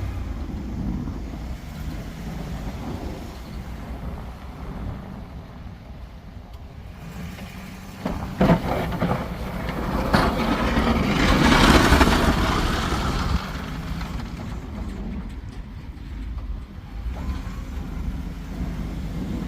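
Plow truck running steadily as it works packed snow and ice, with a louder rough scraping stretch for a few seconds in the middle and a couple of sharp knocks just before it.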